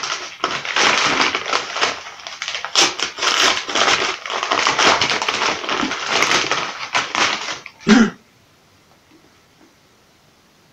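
Padded kraft-paper mailer being torn open and crinkled by hand: a dense, crackling paper rustle that stops abruptly about eight seconds in, just after a short low sound.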